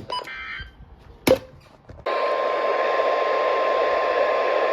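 Weather radio receiver: a short burst of data tones ending the warning message, and a sharp click about a second later. From about two seconds in, a sudden steady hiss of radio static comes in, with a thin steady tone running through it.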